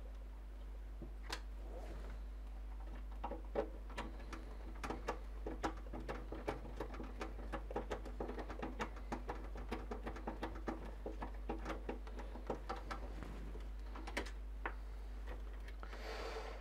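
Irregular light clicks and taps of hands working on computer hardware and case parts, over a steady low hum, with a brief rustle near the end.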